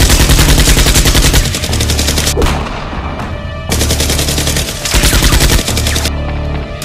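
Rapid automatic gunfire sound effects in several bursts, over background music with a steady bass. The gunfire stands in for toy foam-dart blasters being fired.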